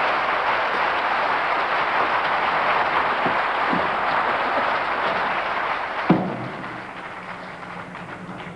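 Audience applauding, fading out about six seconds in, with a single sharp knock as it dies away.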